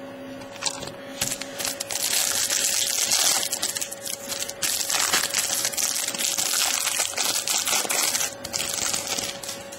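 Plastic wrapping of a trading card pack crinkling as it is torn open and handled by hand, in a long run of crackles starting about a second in and easing off near the end. A faint steady hum runs underneath.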